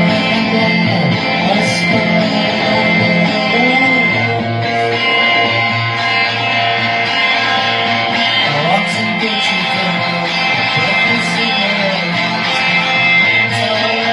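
Rock band playing live, with guitar to the fore over a steady low end, continuously and loud.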